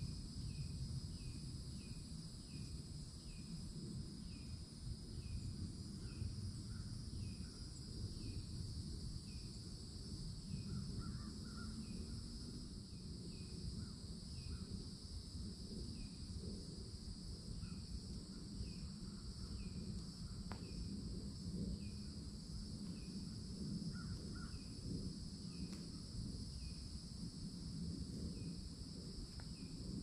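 Summer insect chorus: a steady high drone, with a short falling chirp repeating about twice a second. A few faint, lower calls come in now and then, over a low background rumble.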